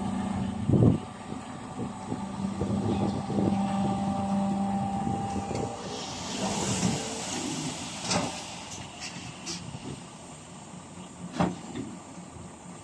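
Dump truck engine running steadily while the hydraulic hoist tips the loaded bed, with a loud thump just under a second in. About halfway through, the steady hum drops away and the soil slides out of the raised bed with a hissing rush. A few sharp knocks follow as the tailgate swings.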